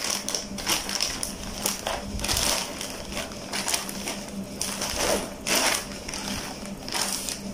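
Clear plastic packaging bag crinkling and rustling in irregular crackles as it is pulled open and a fabric bag is drawn out of it.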